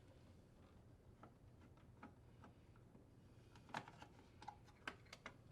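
Faint, scattered clicks and light taps from a screwdriver and small screws on a range vent hood's sheet-metal housing as the terminal block cover screws are taken out, with a sharper click a little before four seconds in.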